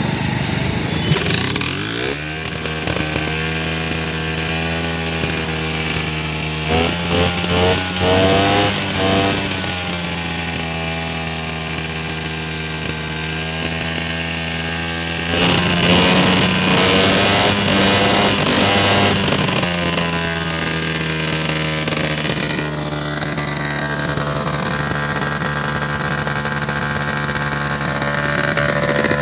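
Two-stroke scooter engine kick-started and catching about two seconds in, then running with a steady idle. The throttle is blipped a few times around a quarter of the way in and opened for a longer rev of about four seconds past the middle. The engine starts quickly after its contact points and magneto have been cleaned.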